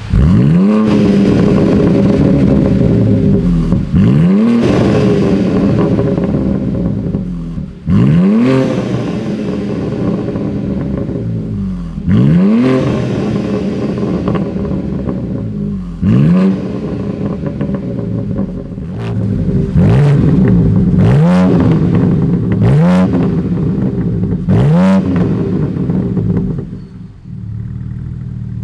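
BMW M4 Competition's S58 twin-turbo straight-six revved repeatedly through an Akrapovic Evolution titanium exhaust. Sharp rev blips rise and fall about every four seconds, then come quicker, about every second or so, in the last third.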